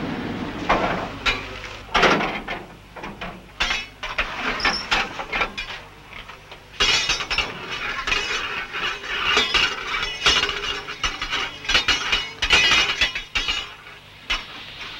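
Fireman's metal tools clanking and scraping at a steam locomotive's open firebox: many irregular sharp clinks and knocks mixed with scraping, a loud knock about two seconds in and the busiest stretch in the second half.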